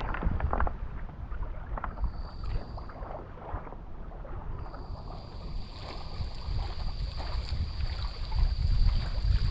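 Wind buffeting the microphone in gusts, with scattered short knocks in the first few seconds. A thin, steady high-pitched tone comes in about halfway through.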